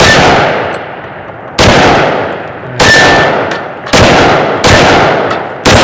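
FK BRNO PSD pistol firing six shots of high-velocity 7.5 FK ammunition at an uneven pace, about one a second. Each loud crack is followed by a long echo that dies away.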